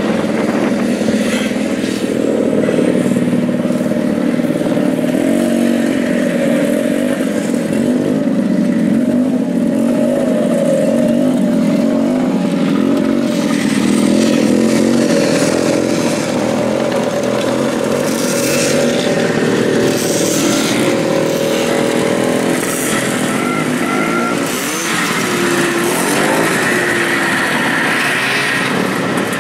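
Vintage two-stroke snowmobile engines running steadily, their overlapping engine notes wavering slightly.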